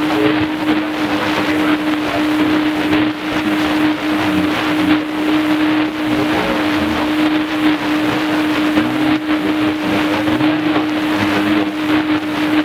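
Shortwave AM reception on a Tecsun PL-310ET portable radio: loud, steady static hiss with a constant low tone, and a weak broadcast signal barely above the noise.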